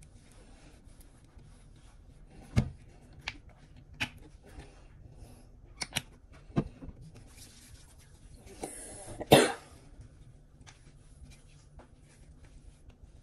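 Small sharp clicks and taps from handling skin-care containers and hands, scattered through the first half, then a short rushing hiss that ends in a loud, sudden burst about nine seconds in.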